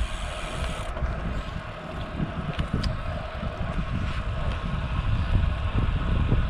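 Wind buffeting the microphone with a rumbling flutter, over a steady drone.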